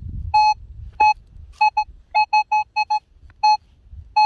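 Metal detector giving repeated short beeps, all at the same pitch, in irregular groups with a quick run of five near the middle, as it sounds off on a buried target. This is the signal of one big target, which reads in the low 20s on the detector's scale.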